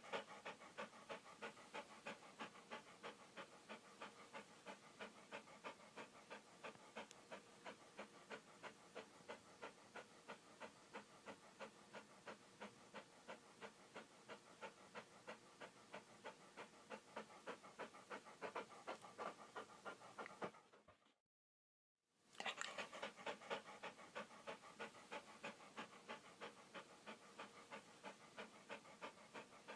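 Dog panting fast and evenly, about three breaths a second. It stops for about a second some 21 seconds in, then starts again.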